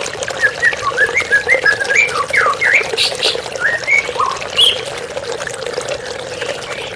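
White-rumped shama (murai batu) singing a fast run of short chirps and whistling notes, over a steady sound of running water.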